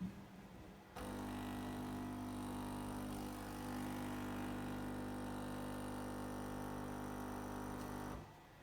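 Sage Oracle espresso machine's pump running with a steady, even hum. It starts abruptly about a second in and cuts off sharply near the end, and a short click is heard at the very start.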